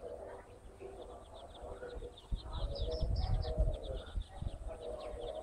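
Chicks peeping over and over in short high calls, with lower calls from the mother hen. A low rumble, loudest from about two to four seconds in, lies under the calls.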